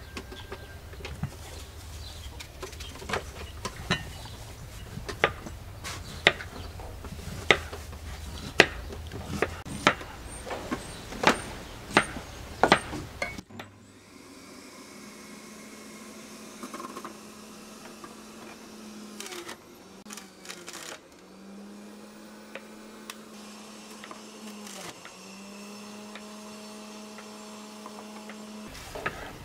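Sharp knocks and taps, about one a second, like kitchen work on a hard surface. Then a steady small electric motor hum that stops and starts again several times before cutting off near the end.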